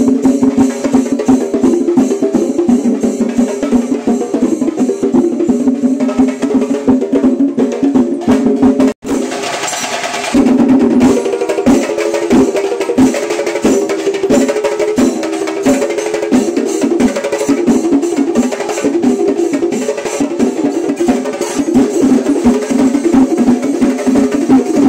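Percussion music: fast, dense drumming over a steady pitched drone, with a brief dropout about nine seconds in.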